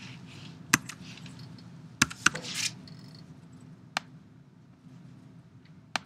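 A handful of separate computer keyboard keystrokes and clicks, a second or two apart, over a low steady hum.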